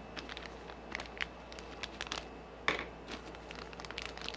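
Small RC kit parts handled and set down on a tabletop: scattered light clicks and crackles, with one sharper click about two and a half seconds in.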